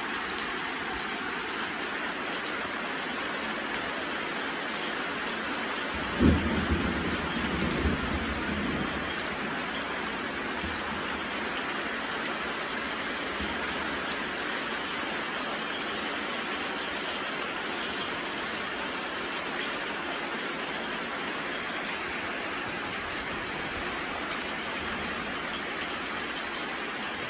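Heavy rain falling steadily, a constant hiss. About six seconds in, a sudden low rumble of thunder breaks in and fades away over the next few seconds.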